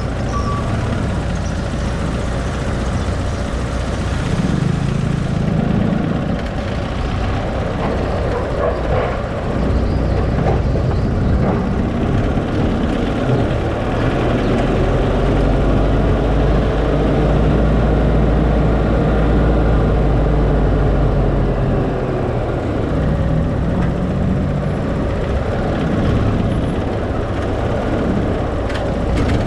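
Car engine and road noise while driving, with no speech. About halfway through, the engine note climbs and holds for several seconds as the car speeds up, then drops back as it slows.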